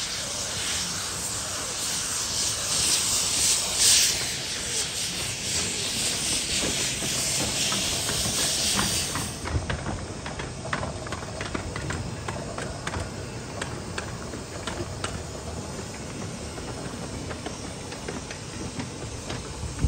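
A 15-inch gauge steam locomotive venting steam in a loud, steady hiss that cuts off sharply about halfway through. Scattered clicks and knocks and a low rumble of train running gear follow.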